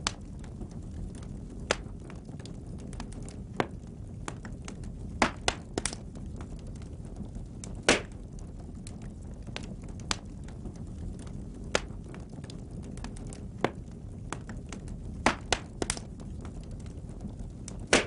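Wood logs burning in a fireplace: a steady low rumble of flames with irregular sharp crackles and pops, about a dozen of them, the loudest around eight seconds in.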